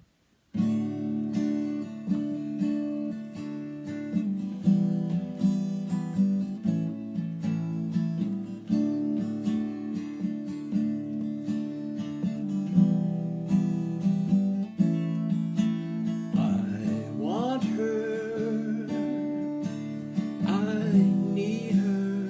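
Acoustic guitar strummed in a steady rhythm as a song intro, starting about half a second in. Twice in the second half, a sliding, wavering pitched line rises above the strumming.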